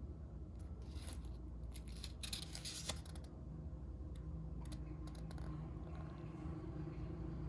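Watch packaging being opened by hand: about two seconds of crisp rustling and crinkling near the start, then a few light clicks.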